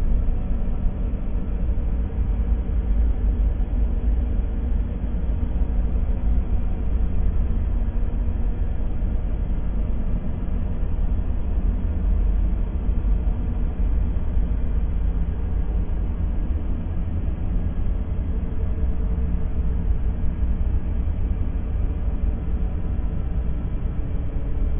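Empty-room ambience: a steady, deep rumble with a faint hum, with no distinct events.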